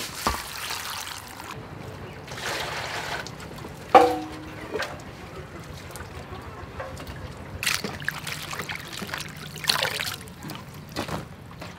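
Water splashing and dripping as food is rinsed and lifted by hand in stainless steel bowls, in several short splashes. About four seconds in, a metal bowl is knocked and rings briefly, the loudest sound.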